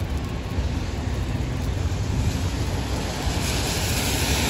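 City traffic on a wet street: a steady low rumble, with a hiss of tyres on wet pavement swelling near the end as a car drives past.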